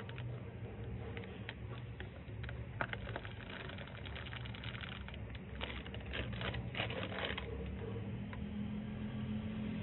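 Plastic powder packet crinkling and rustling as white powder is poured from it into a plastic tub: a run of crackles that thins out about three-quarters of the way through.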